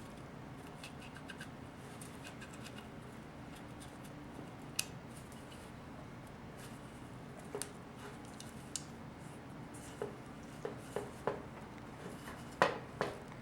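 Small sharp metal clicks and taps from hand work on a 4L60E transmission pump's parts, a few scattered at first and then several close together near the end, the loudest among them. A low steady hum runs underneath.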